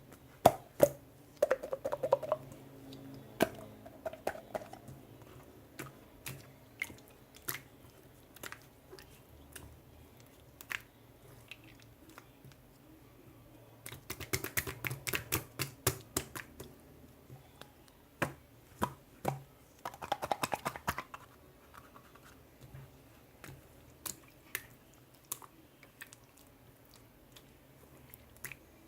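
Slime being squeezed and poked by hand: irregular sticky pops and clicks, with a busier stretch of rapid crackling about halfway through.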